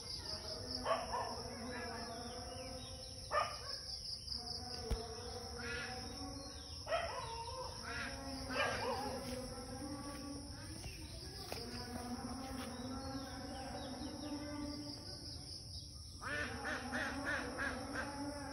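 Steady high-pitched insect chorus, with distant voices and animal calls coming and going over it, and a few light clicks.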